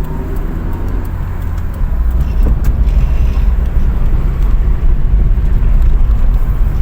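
Car's engine and road noise heard from inside the cabin: a steady low rumble that grows louder about two seconds in, as the car picks up speed.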